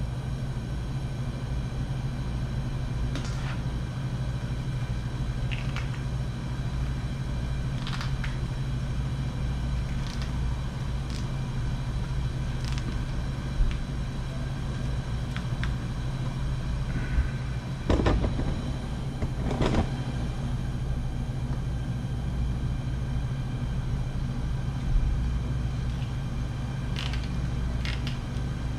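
A radiant shop heater running with a steady low hum. About eight sharp clicks and knocks from the vinyl tubing and hand tools being handled come through it, the loudest a pair near the middle.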